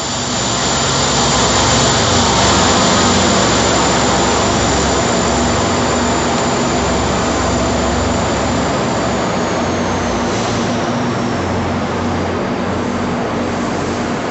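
Diesel locomotive of an NJ Transit train running steadily, with a loud high whine that slides down in pitch about ten seconds in.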